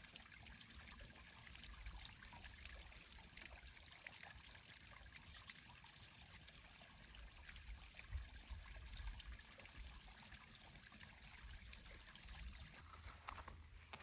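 Near silence: faint trickling and lapping of water, with a steady high hiss.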